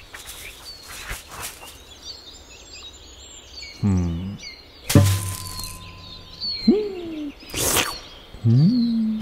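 Birdsong ambience with a string of cartoon sound effects: a falling pitched sound, then a sharp hit with a held ringing tone, a quick rising-and-falling glide, a short whoosh, and near the end a rising tone that holds.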